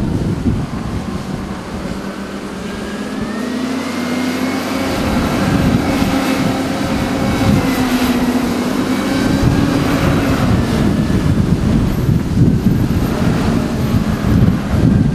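Wheel loader's diesel engine running under work, its pitch rising about two seconds in and holding with a slight waver before dropping back about ten seconds in. Wind rumbles on the microphone at the start and end.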